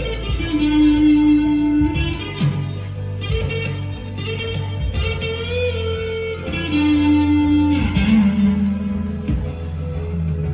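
Squier Deluxe Stratocaster with Duncan Designed pickups played through overdrive: sustained lead notes, one wavering with vibrato about halfway through, over a backing track.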